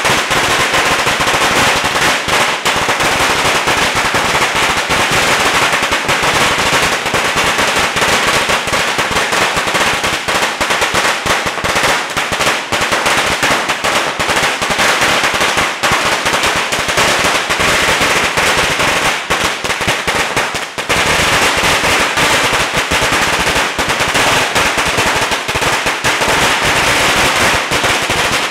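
A long hanging string of Chinese firecrackers going off in a dense, rapid, unbroken crackle of bangs, loud throughout, with a brief dip just after twenty seconds in.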